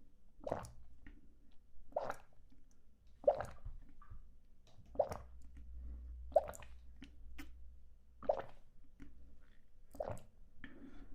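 Close-miked wet mouth sounds: a slow series of about seven soft pops, roughly one every second and a half.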